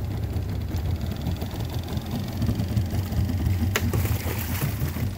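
Boat motor idling steadily, with a sharp splash about four seconds in as a hooked flathead catfish is hauled thrashing out of the water.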